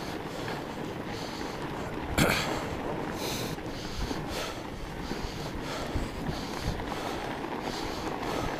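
Fat bike riding along a packed snow trail: a steady rush of the wide tyres on snow and wind on the camera microphone, with a sharp knock about two seconds in.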